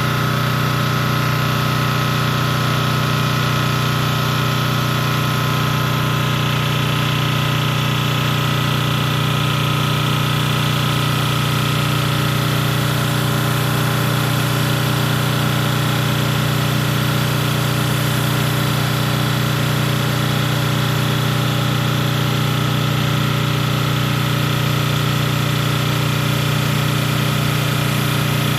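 Industrial pressure washer running steadily at full pressure, its engine and pump humming while water jets from a 20-inch Whirlaway flat surface cleaner hiss against the driveway surface. The sound is unbroken and even, with a steady high whine over the engine note.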